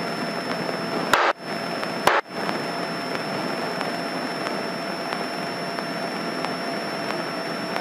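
Steady engine and propeller noise of a single-engine light airplane in cruise, heard through the cockpit headset intercom. Two short clicks about one and two seconds in, each followed by a brief dropout.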